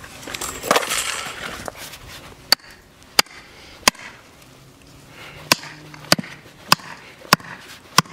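Hammer striking wood in a steady rhythm: three blows, a short pause, then five more about 0.6 s apart, after a rustling scrape in the first two seconds.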